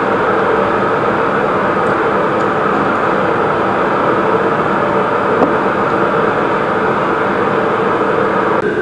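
A steady, loud machine drone with a few held hum tones over an even rushing noise, the tones shifting slightly near the end.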